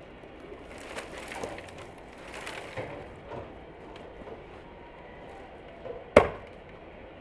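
Dry brushwood branches rustling and knocking as they are pulled from a pile, then one sharp hatchet chop into the wood about six seconds in.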